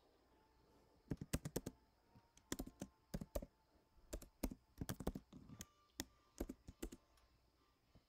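Computer keyboard typing: several quick bursts of keystrokes, with short pauses between them.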